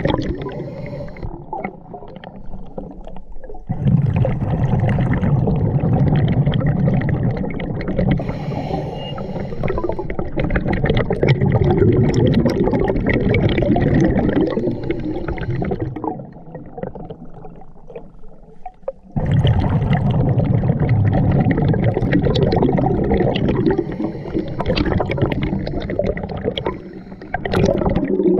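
Scuba diver's exhaled breath bubbling out of the regulator underwater: long spells of low gurgling bubble noise, broken by quieter stretches of a few seconds, one starting about a second in and another around sixteen seconds in.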